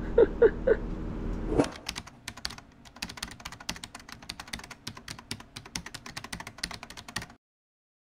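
Keyboard typing sound effect: rapid, irregular key clicks that start about a second and a half in, after a few short louder sounds, and cut off suddenly near the end.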